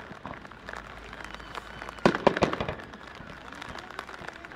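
Firework shell bursting: one sharp loud bang about two seconds in, followed by a short run of crackling reports.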